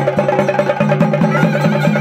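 Traditional Indian temple music: a reed pipe playing over a steady drone, with fast, even drum strokes.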